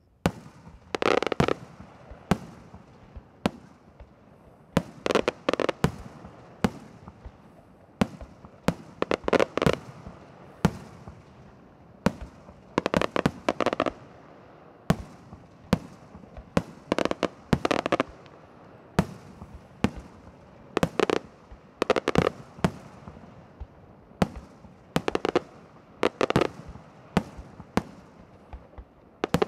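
Castillo fireworks display: aerial shells and comets firing and bursting. The sound starts suddenly, with a tight cluster of rapid loud bangs about every four seconds and single sharp reports in between.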